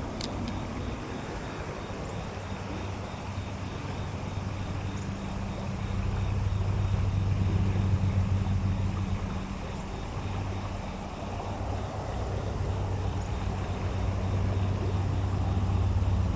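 A low engine hum that swells twice as it passes, over a steady rush of flowing water from a shallow river riffle.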